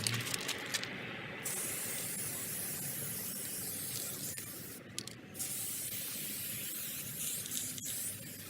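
Turtle Wax Black Tire Coat being sprayed onto a car tire: a long steady hiss of spray, a brief break about five seconds in, then a second long spray.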